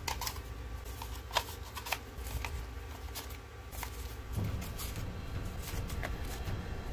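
Hands handling a plastic Nerf dart magazine, loading foam darts into it: a string of sharp plastic clicks and rattles, spaced irregularly.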